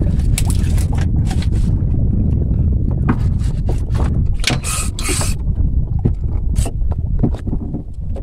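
Steady low rumble of a small boat at sea, with scattered clicks and scrapes from fishing tackle being handled as a fish is reeled in on a spinning rod. A short hiss comes a little under five seconds in.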